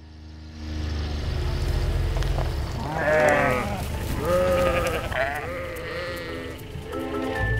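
A flock of sheep bleating, with several overlapping calls in the middle of the stretch, over background music with a low steady bass.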